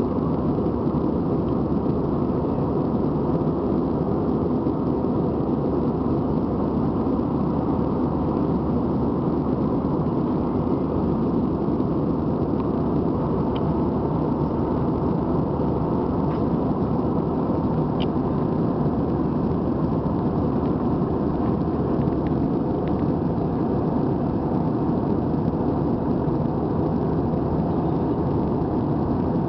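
Steady cabin noise of an Airbus A320 in its climb after takeoff: the engines and the rush of air past the fuselage, heard from a window seat inside the passenger cabin.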